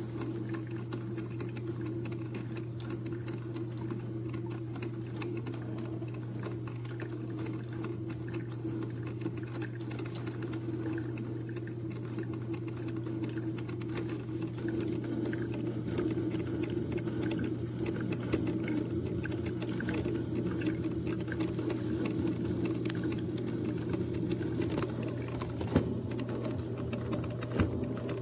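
Hamilton Beach 5-cup drip coffee maker brewing: a steady low hum under rapid crackling and sputtering as the heated water is pushed up through the machine.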